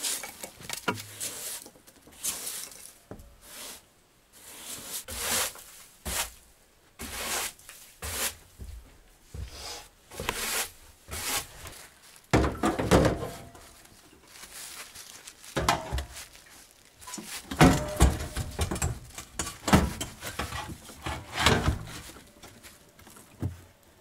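Irregular knocks, thuds and short rubbing or scraping sounds, as of objects being handled and set down, with the loudest clusters about halfway through and again in the last third.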